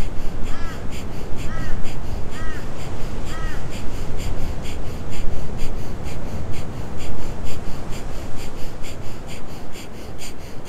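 Breath of fire: fast, rhythmic, forceful nasal breathing, about three pumping breaths a second. A bird calls four times, about a second apart, over the first few seconds.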